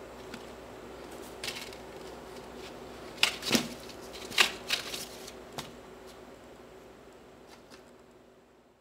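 Cardboard egg trays rustling and scraping as kittens paw and push at them, with a cluster of sharp scratches and taps in the middle. A faint steady hum runs underneath.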